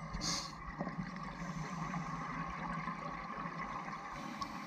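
Muffled underwater ambience picked up through a dive camera's housing: a steady wash of water noise, with a brief hiss just after the start.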